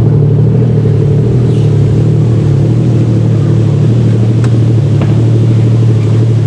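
Personal watercraft (jet ski) engine running steadily at a constant pitch.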